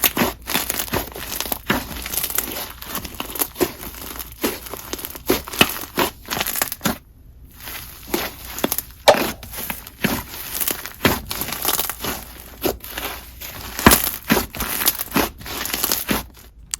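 Hands squishing and stretching a textured clay slime mixed with snow fizz slime, giving rapid crackles and pops. There is a brief pause about seven seconds in.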